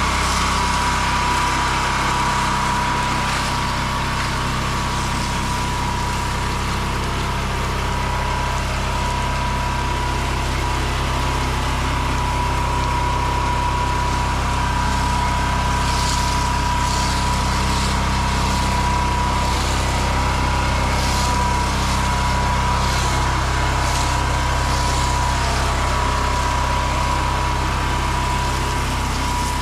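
Small engine of a pressure washing rig running steadily, with a constant high whine over its drone. Brief hissing spurts come and go in the second half.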